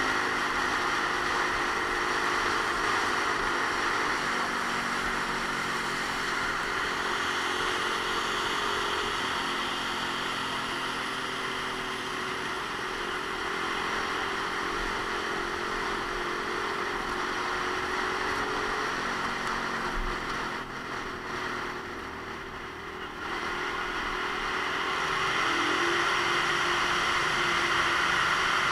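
Romet Ogar Caffe 125's small single-cylinder four-stroke engine running on the move, its note drifting up and down with the throttle, under a loud steady hiss of wind and tyres on the wet road. Everything drops a little quieter for a couple of seconds about two-thirds of the way through.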